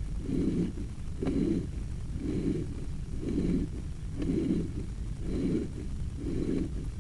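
Sewer inspection camera's push cable being pulled back through the drain line, a low rumbling rub repeating about once a second.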